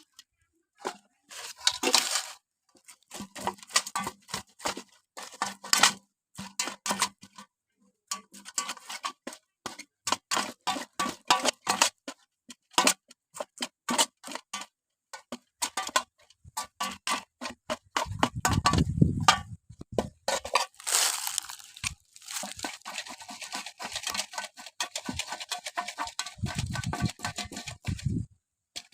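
Crunchy snack being bitten and chewed close to the microphone: rapid series of crisp crunches, with a low thump partway through and a denser, steady crackling over the last several seconds.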